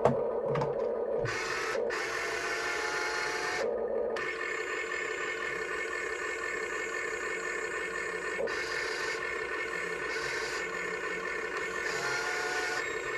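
Toy remote control excavator's small electric motors whirring as it is driven and its arm worked, the motor sound cutting in and out several times as different functions start and stop.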